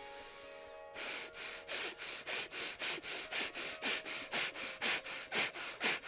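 A man breathing in and out rapidly and forcefully through the nose: short, even breaths about three a second, starting about a second in, in rapid inhalation–exhalation yoga breathing. Soft background music runs underneath.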